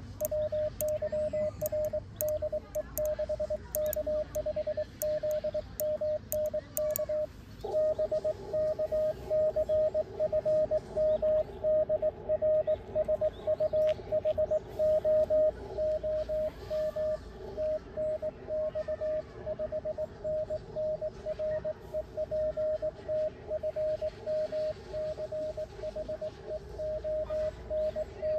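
Morse code (CW) on an amateur radio transceiver: a single steady-pitched beep keyed on and off in dots and dashes. For about the first seven seconds it comes with sharp clicks of the paddle key. After that the beeps carry on with radio hiss and a fainter, lower second note under them for the rest.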